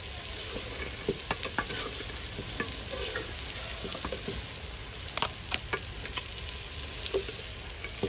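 Bitter gourd and onion frying in oil in a metal pot, a steady sizzle, while a metal slotted ladle stirs and scrapes, clicking against the pot again and again.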